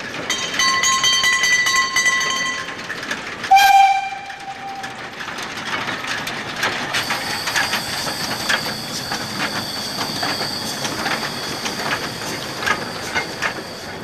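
Saxon IV K narrow-gauge steam locomotive 99 1584-4 sounds a whistle blast of about two seconds, then a shorter, lower whistle note a second later. From about seven seconds the train is moving, with wheels clicking over rail joints under a steady high-pitched tone.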